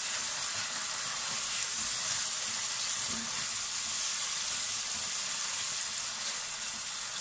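Sliced capsicums, onion and green chillies with tomato sauce sizzling in butter in a hot pan as they are stirred: a steady frying hiss.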